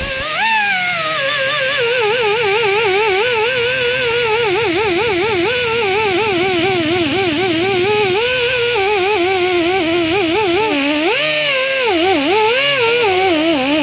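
Background music: a single melodic line with fast, wide vibrato, gliding slowly up and down in pitch. It starts and stops abruptly.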